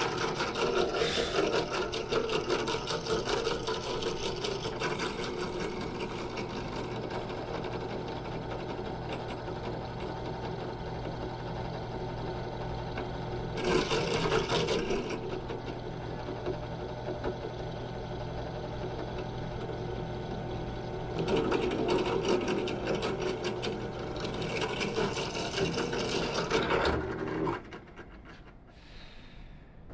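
Benchtop drill press running with a steady hum, its bit drilling holes through small metal brackets. The sound grows louder as the bit cuts, briefly about 14 s in and again for several seconds from about 21 s. The motor stops near the end.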